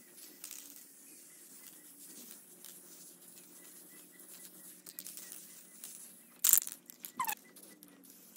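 Rust-Oleum aerosol spray-paint can hissing in short passes over steel diamond plate, with scattered light clicks. About six and a half seconds in comes a loud, sharp metallic clatter with a few smaller rattles after it, like the can being handled and its mixing ball knocking.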